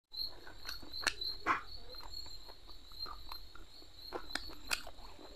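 Close-up eating of fried fish by hand: chewing with wet lip smacks and a few sharp mouth clicks, the loudest about a second in and again after four seconds, over a steady high-pitched tone.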